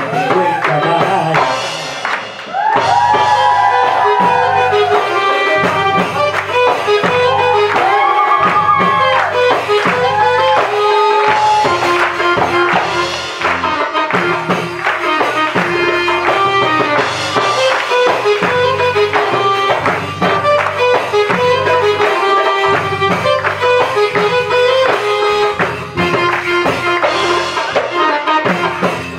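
Live Arabic music played through PA speakers: a male singer's winding, ornamented vocal line over electronic keyboard and a hand-drum rhythm. The voice drops out after about twelve seconds, leaving keyboard and drum.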